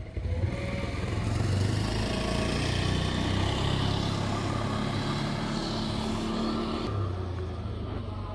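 A motor vehicle passing close by, its engine hum and tyre noise swelling about a second in, holding for several seconds, then dropping away near the end.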